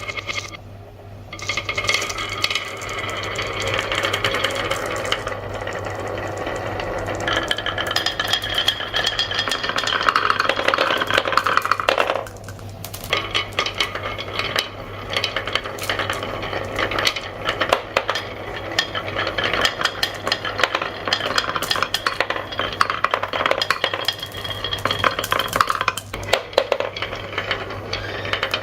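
Marbles rolling and clattering down a toy marble run, with many quick clicks over a steady rolling sound and a steady low hum underneath; the rattle drops off briefly about twelve seconds in.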